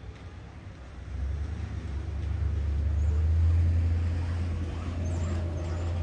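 Low engine rumble of a vehicle on the street, swelling about a second in and staying loud, with a few faint high bird chirps near the end.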